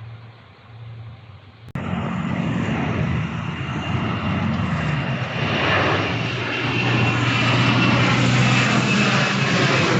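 Airliner engines running loud: a roar with a high steady whine, which starts abruptly about two seconds in and builds louder. Before that there is only a faint low hum.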